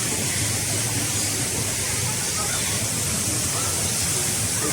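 Steady hiss at an even level, with faint voices near the end.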